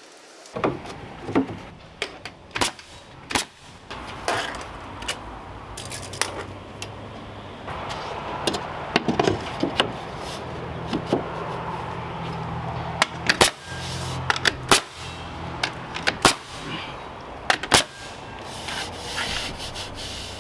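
Hand work on shed siding: a string of sharp knocks and taps as boards are handled and fastened, over a rubbing, scraping background. A low steady hum joins in about eight seconds in and runs almost to the end.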